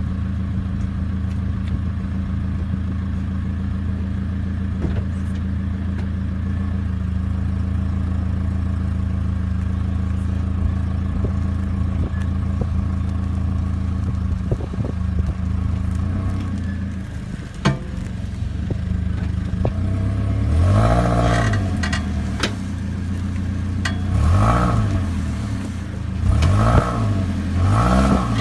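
A vehicle engine idling steadily with scattered clunks and clicks, then blipped about four times in its last third, each rev rising and falling back. The clunky noise is the fault on show.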